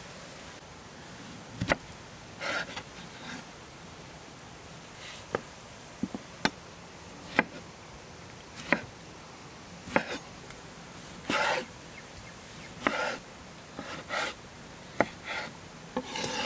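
Large kitchen knife cutting peeled tomatoes on a wooden cutting board: irregular sharp knocks of the blade hitting the board, mixed with short slicing and scraping strokes.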